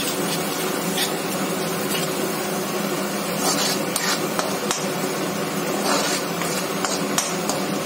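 Spatula scraping and knocking against a kadhai as spiced onion-tomato masala is stirred and fried, with a steady sizzling hiss underneath and a handful of sharp knocks scattered through.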